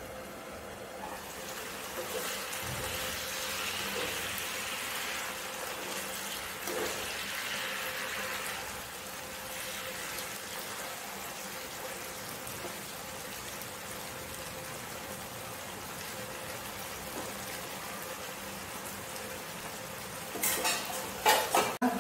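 Vegetable curry sizzling steadily in a frying pan over a gas burner, stirred with a steel ladle. Near the end the ladle knocks and scrapes against the pan several times.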